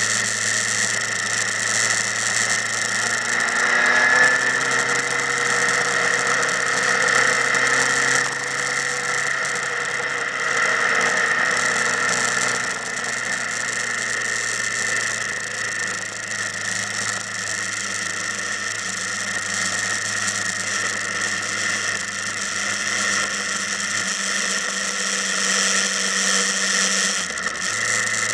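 Motorcycle engines running steadily, with engine notes rising and falling between about four and twelve seconds in.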